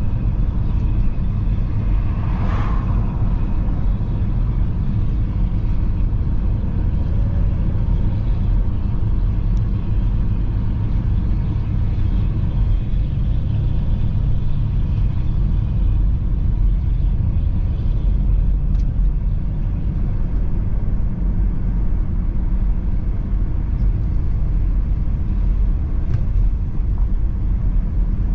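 Steady low rumble of a car being driven, road and engine noise heard inside the cabin.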